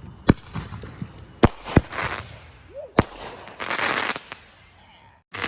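Four sharp bangs, two of them close together, with short bursts of crackling hiss in between.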